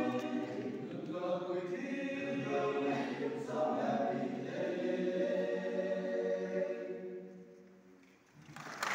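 Men's choir singing a cappella, ending on a long held chord that fades away about eight seconds in. A loud rush of noise starts just before the end.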